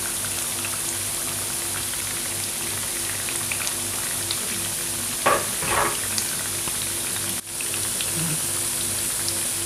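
Spiced plantain pieces frying in hot oil, a steady sizzle flecked with small crackles. About five seconds in there are two brief louder swishes, and the sound drops out for an instant a couple of seconds later.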